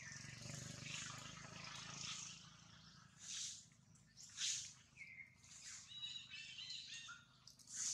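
Forest ambience: a steady high hiss with faint bird chirps, turning into a run of short, high chirps and brief calls about halfway through.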